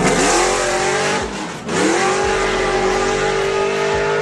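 A fourth-generation Chevrolet Camaro launching down a drag strip at full throttle. The engine note climbs steeply, drops briefly at a gear shift about one and a half seconds in, then climbs again and holds high.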